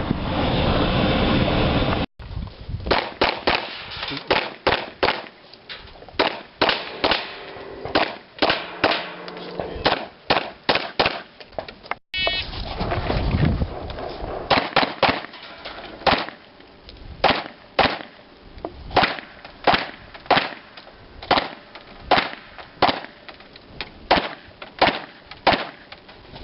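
Handgun shots fired in irregular strings, one or two a second, each sharp report ringing briefly. A brief beep comes about halfway through. A steady rushing noise fills the first two seconds before the shooting starts.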